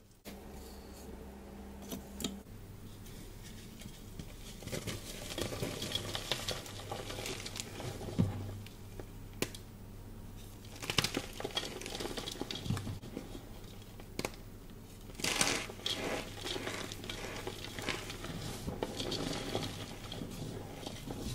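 Hydrophobic powder-coated chalk being squeezed and crumbled in gloved hands over a bowl: irregular soft crunching and crinkling with rustling powder, and a few louder crunches along the way.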